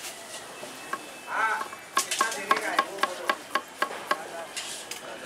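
Knife chopping capsicums on a wooden board. After a couple of seconds it settles into quick, even strokes, about four or five a second, each a sharp knock with a short metallic ring.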